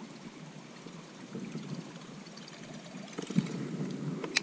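Plastic raincoat rustling and handling noise as the angler swings a bass rod into a cast. It gets louder about three seconds in, and there is one sharp click near the end.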